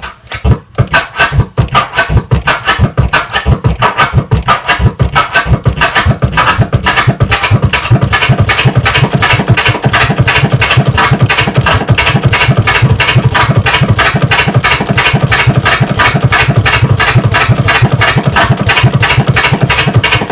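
Flare scratches on a kick-and-snare drum sample: a vinyl record is pushed forward and back on a turntable while the crossfader is clicked once in each direction, chopping every stroke into two sounds. The strokes come in a fast, steady run that speeds up after the first few seconds.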